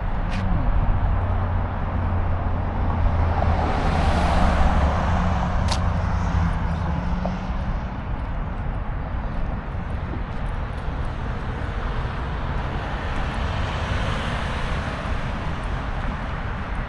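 Road traffic: a steady rumble of vehicles, swelling about four seconds in as one passes close, then settling back to a constant drone.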